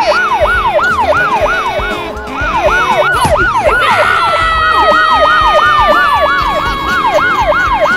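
Siren in a fast yelp pattern, sweeping up and down about three times a second. About halfway through, a second steady siren tone joins and slowly slides lower in pitch.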